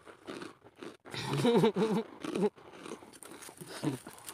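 A man's wordless, wavering drawn-out vocal cry or groan about a second in, amid crunching and rustling from dry stems and brush.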